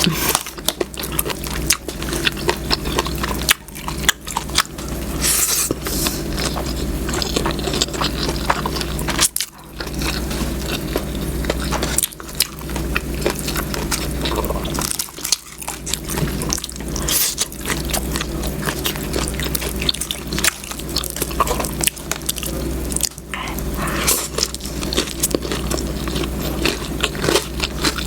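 Close-miked eating: wet chewing, biting and smacking on saucy adobo squid, with a steady low hum underneath.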